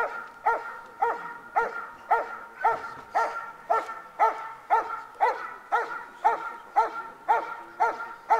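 German Shepherd barking steadily in an even rhythm, about two barks a second.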